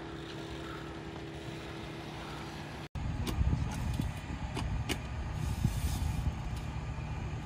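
A steady low outdoor rumble with a faint hum. About three seconds in it jumps to a louder, gusty low rumble with a few sharp clicks.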